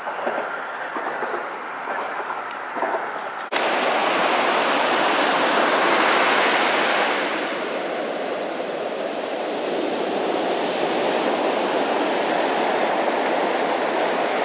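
Ocean surf breaking and washing up a sandy beach: a steady, loud rush of water that starts suddenly about three and a half seconds in. Before that, a quieter background with a few faint clicks.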